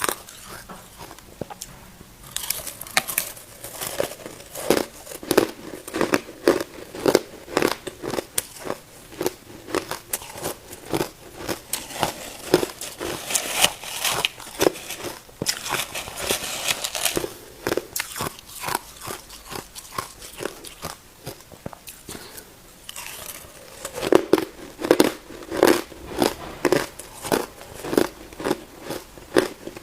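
A person biting and chewing ice close up, with rapid, sharp, crackling crunches of ice breaking between the teeth. The crunching eases off for a few seconds past the middle, then starts again strongly near the end.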